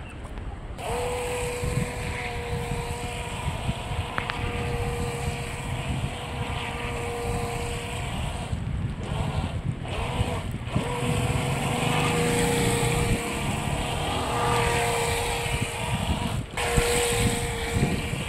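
HJ808 toy RC speedboat's electric motor whining at a steady high pitch as the boat runs across the river. The whine drops out briefly twice past the middle and once near the end. Wind rumbles on the microphone.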